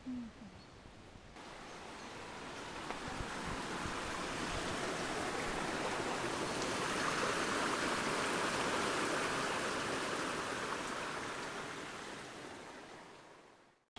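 Steady rushing noise that starts suddenly, swells louder toward the middle and fades away near the end.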